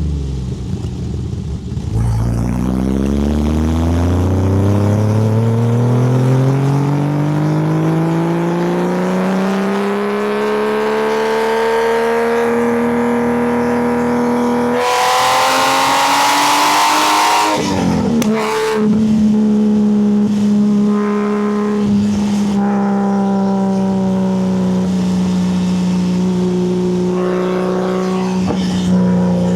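Porsche 964's air-cooled flat-six through a loud custom exhaust, driven hard. The pitch falls at first, then the engine pulls a long, slow climb in revs, turning into a loud rasp near the top about halfway through. It then shifts up with a sudden drop in pitch and settles into a steady, slowly falling cruise note.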